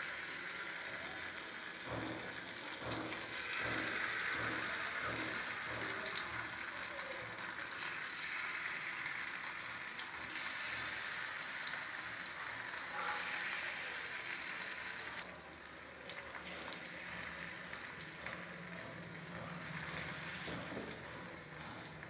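Masala-coated sardines shallow-frying in oil on a flat tawa, sizzling steadily. A few soft clacks in the first several seconds as the fish are laid in, and the sizzle drops a little about two-thirds of the way through.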